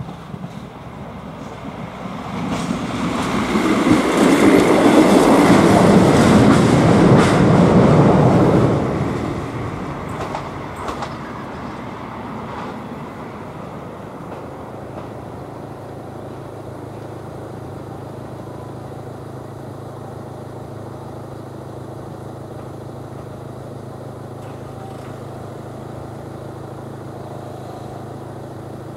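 A passenger train passing over a level crossing: its noise builds from about two seconds in, stays loud for several seconds with wheel clicks over the rail joints, then fades away. After it, a steady low hum remains, like a waiting car idling.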